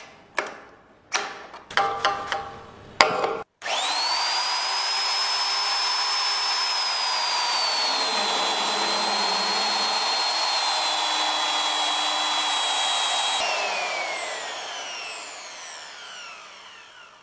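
A few short, sharp knocks, then a Fein KBE32 magnetic core drill motor starts about four seconds in, its high whine rising as it spins up. It runs loud and steady while the annular cutter bores through steel plate, the whine dropping slightly in pitch partway through. About thirteen seconds in it is switched off, and the whine falls away as it spins down.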